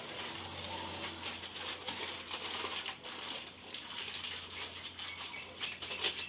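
Plastic snack packet crinkling and crackling in the hands as it is twisted and pulled at to tear it open.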